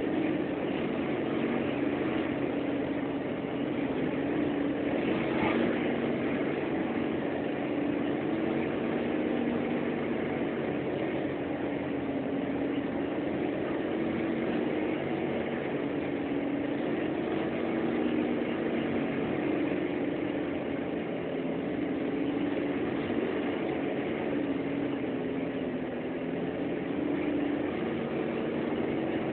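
Bus engine running steadily under way with road noise, heard from inside the cabin: an even, unbroken drone.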